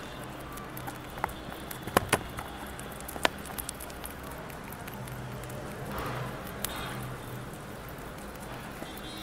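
Rabbits chewing fresh leafy green stems: a soft crackly munching, with a few sharp, crisp snaps about two and three seconds in.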